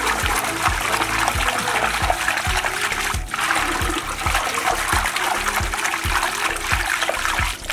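Watery spice-and-salt mixture sloshing in a steel pot as a bare hand churns it, a wet swishing with a low slap about three times a second.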